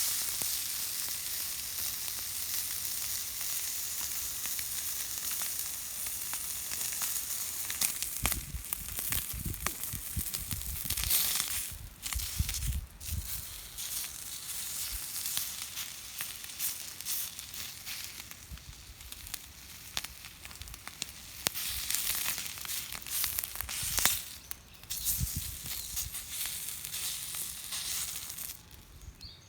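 Food sizzling on a small iron griddle plate over a wood stove, a steady hiss, with low knocks and handling noises partway through and a sharp click near the end.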